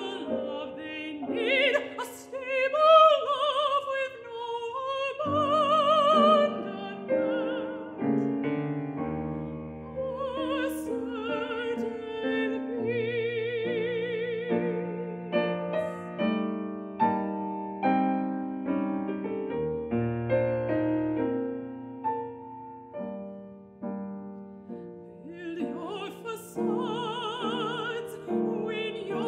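Mezzo-soprano singing an operatic aria with a wide vibrato on the held notes, accompanied by piano.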